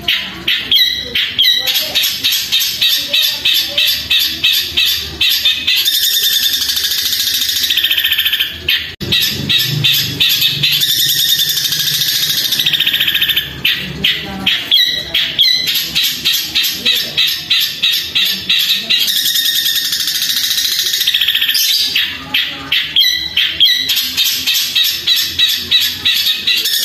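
Caged long-tailed shrike singing loudly and almost without pause: long runs of rapid chattering notes mimicking the calls of fighting sparrows, broken by a few short gaps.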